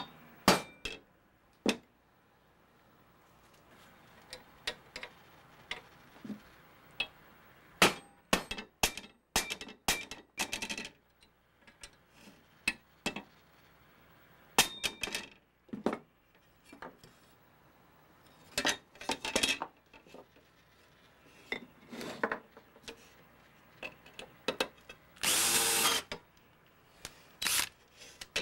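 Steel screwdrivers scraping and clicking in the slotted handle bolts of an old Martindale No. 204 machete as they are worked loose, with tools knocking on the wooden workbench. Short irregular clicks and scrapes, with one longer scrape near the end.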